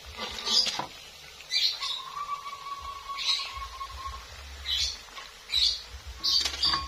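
A metal spatula scraping and clinking against a wok in hot frying oil, in short bursts about once a second, over the low sizzle of peanut-and-batter crackers frying.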